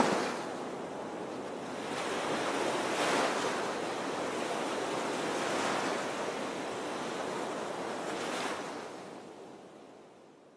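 Water splashing in surges a few seconds apart as zipliners drag their feet and bodies through a canyon pool, over the steady rush of a small waterfall. The sound fades out near the end.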